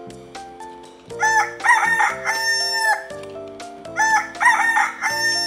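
Rooster crowing twice, a full cock-a-doodle-doo each time, the first about a second in and the second about four seconds in, over light background music.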